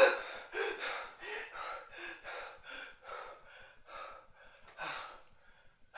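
A man gasps sharply, then pants heavily and fast, about three breaths a second, growing fainter, with one louder breath near the five-second mark.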